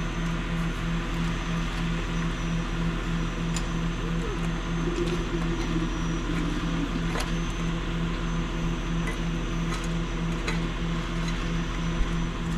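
A large engine idling steadily, with an even low throb and a few faint clicks on top.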